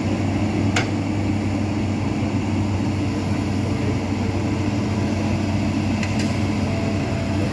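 Diesel engine of a Hitachi ZX210F hydraulic excavator running steadily, a low, even drone. Two brief sharp sounds cut through it, about a second in and again near the end.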